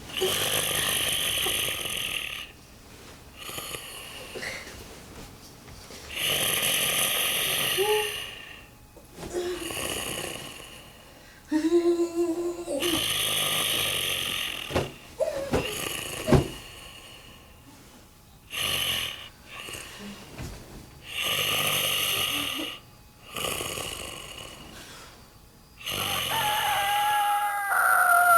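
Snoring: loud rasping snores, about nine in all, one every few seconds, each lasting a second or two. A few carry a squeaky or whistling tone, and a falling whistle comes near the end.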